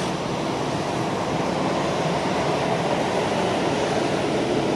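Steady vehicle noise with a faint low hum underneath.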